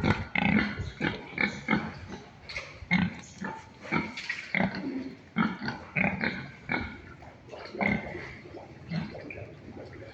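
Pigs grunting, with many short grunts coming several a second and overlapping.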